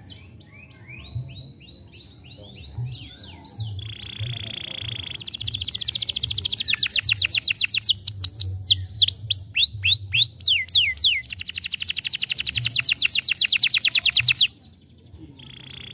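Domestic canary singing: a string of short rising chirps, a held whistle about four seconds in, then long, very fast rolls broken by a few falling sweeps, stopping abruptly near the end.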